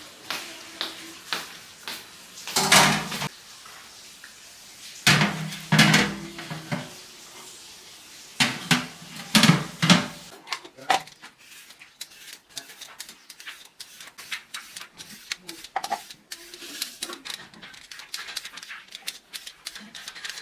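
Voices, then a long run of light, quick clicks and taps like utensils and dishes being handled.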